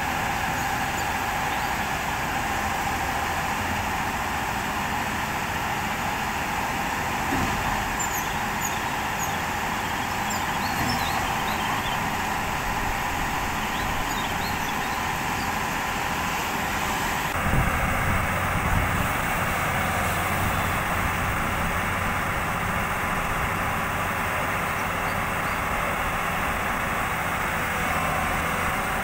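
Tata Hitachi 200-class hydraulic excavator's diesel engine running under load as the machine crawls on its tracks up onto a low-bed trailer deck. A single heavy thump comes a little past halfway through.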